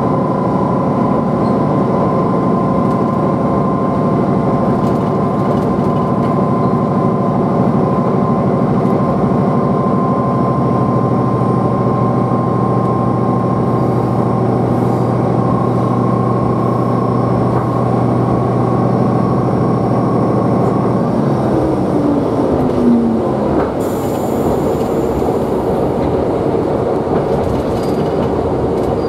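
Tsugaru Railway diesel railcar running between stations, heard from inside the cabin: a steady engine drone over the rumble of wheels on rail. About two-thirds of the way through, the engine note drops away, with a brief high hiss just after.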